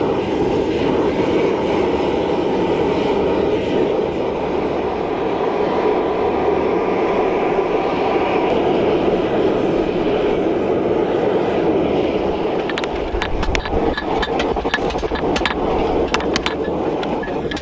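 Gas forge burner running with a steady rushing noise while a steel bar heats inside. Over the last few seconds a scatter of light, sharp clicks is heard over it.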